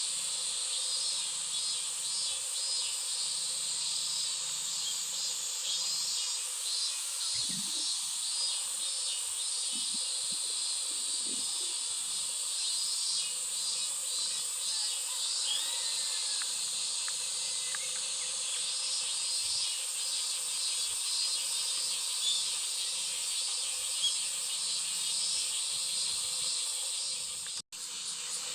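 Steady chorus of insects: a continuous high-pitched buzz with a fast, fine pulsing, and a few faint bird chirps around the middle. The sound cuts out for an instant near the end.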